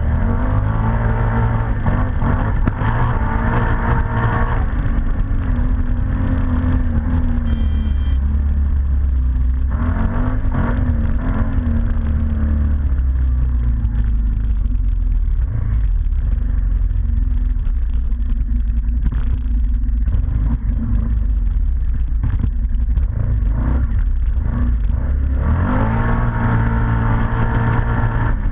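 ATV engine running while being ridden, its revs rising and falling repeatedly over a steady low rumble.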